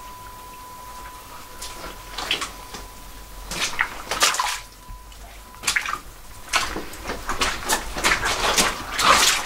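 Footsteps splashing and sloshing through shallow water on a wet mine tunnel floor, a step every second or so at first, then quicker and louder steps near the end. A faint steady high tone sounds through the first half.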